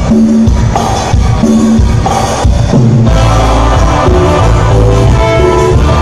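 Live band dance music played loud, an instrumental passage with a steady bass line and percussion beat.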